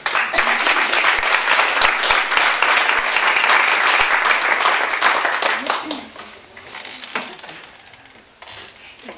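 Small audience applauding: dense clapping for about six seconds that then dies away to a few scattered claps.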